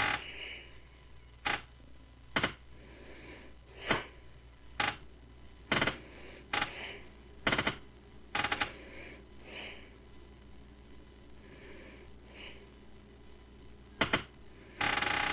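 Sharp single clicks or taps, about ten of them at uneven spacing, then a pause of several seconds and a quick double click. A louder continuous sound starts near the end.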